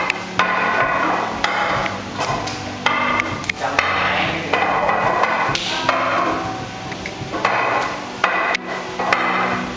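Wing Chun wooden dummy being struck by hands and forearms: a quick, irregular run of wooden knocks and clacks as the arms hit the dummy's wooden arms and trunk.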